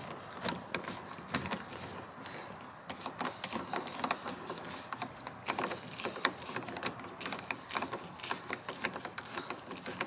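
Hand screwdriver driving a screw back into a car door's inner panel: small, irregular clicks and ticks as the screwdriver turns in the screw head.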